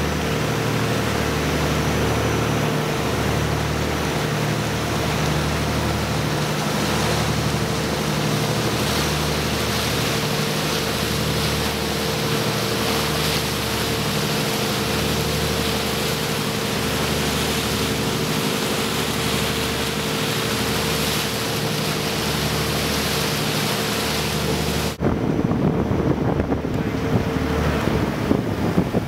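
Boat engine running steadily at cruising speed, a deep drone with a slow, regular throb and a held hum, under the rush of water along the hull. About 25 seconds in this cuts to wind buffeting the microphone over the splash of water.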